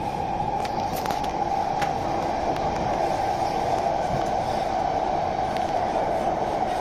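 Cabin noise of a Singapore MRT C151C train running between stations: steady running noise of the car on the rails, with a few faint clicks in the first two seconds.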